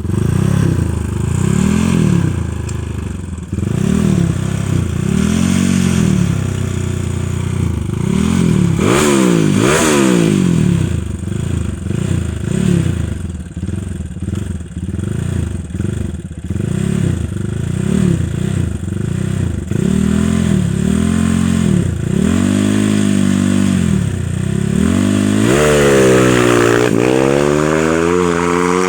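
Yamaha Scorpio's single-cylinder four-stroke engine, bored out to 320cc, revved over and over in short throttle blips that rise and fall, with a longer, higher rev near the end. It is running on its first tune-up, and the owner hears something odd in its note.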